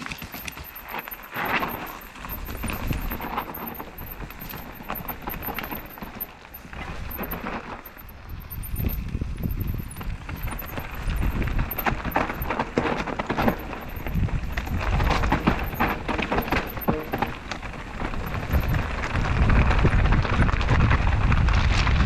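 Mountain bike descending a rocky trail: tyres crunching over loose stones with a dense, irregular clatter of the bike rattling over the rocks. Wind rumbles on the camera's microphone and the whole grows louder toward the end as the bike gathers speed.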